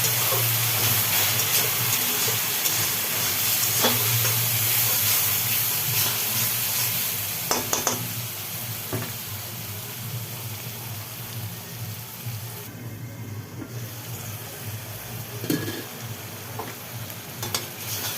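Onion, tomato and spice masala sizzling in a hot pan as it is stirred, with occasional scrapes of the spoon against the pan. The sizzle is loudest in the first half, then gets quieter and drops out briefly a little past the middle.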